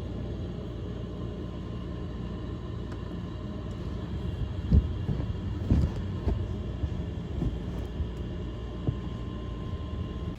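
Steady low vehicle rumble, with several sharp low thumps between about four and nine seconds in, the loudest around five to six seconds. It stops abruptly at the end.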